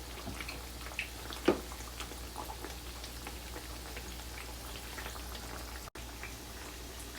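Chickpea-flour fritters deep-frying in hot oil: a steady sizzle with scattered small pops and crackles, and a sharper pop about a second and a half in.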